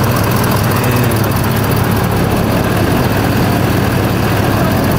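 Pickup truck engine idling steadily, a constant low hum.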